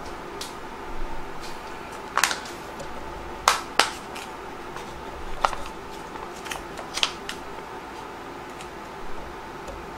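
Plastic pouch of seaweed noodles crinkling and crackling as it is handled and turned over. A few sharp crackles come about two, three and a half, five and a half and seven seconds in, over a steady low hum.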